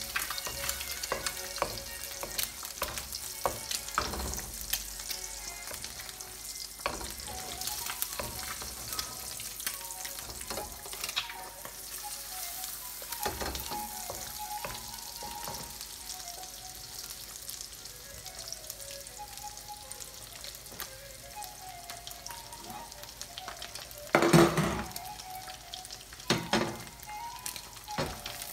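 An egg frying in oil in a wok: a steady sizzle with crackling spatters. Near the end there are two loud clattering knocks.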